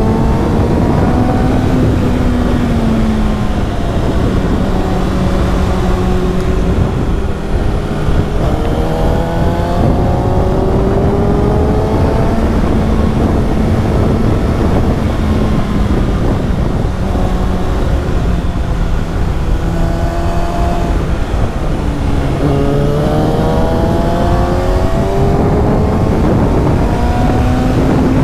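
2018 Kawasaki ZX-6R's 636 cc inline-four with an Akrapovic slip-on exhaust running under way, its note rising three times as it accelerates and holding steady between, over a constant rush of wind and road noise.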